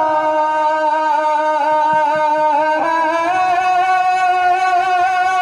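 Male naat reciter holding one long sung note through a microphone, the pitch stepping slightly about halfway through.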